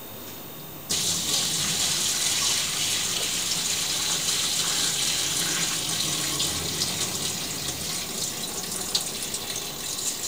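Water pouring steadily into a stainless steel sink, starting suddenly about a second in: the last, clear rinse water being drained off a pot of washed sushi rice.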